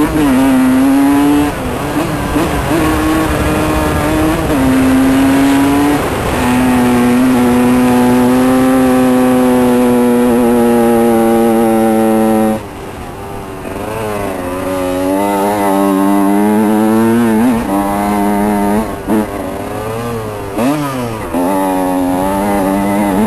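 Honda CR125 two-stroke single-cylinder engine under way, holding a steady pitch for long stretches, then shutting off sharply about halfway through and being blipped up and down several times after. The engine would not rev out properly.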